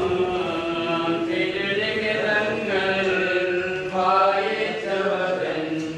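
Voices singing a slow Christian funeral hymn in Malayalam, with long held notes.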